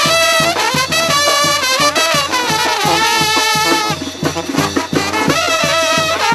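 Brass band playing a lively tune: trumpets carry the melody over a steady drum beat.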